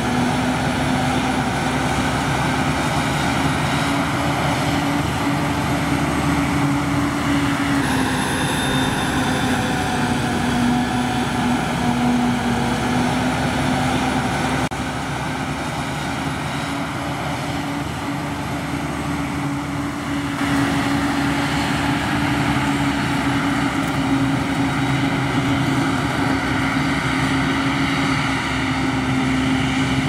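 Claas self-propelled forage harvester and the tractors hauling beside it running under load while chopping maize: a steady engine drone with a held hum, a little quieter for a few seconds midway.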